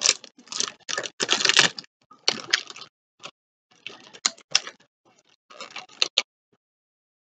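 Plastic bag of De La Rosa Mazapán candies crinkling in irregular bursts as hands work at it to open it, stopping about six seconds in.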